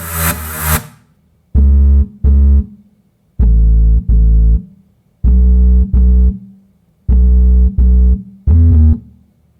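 Music: synthesizer keyboard chords over a heavy deep bass, played as pairs of held chords about every two seconds with short silences between, without drums, in a slow R&B style. A beat-driven electronic track fades out in the first second.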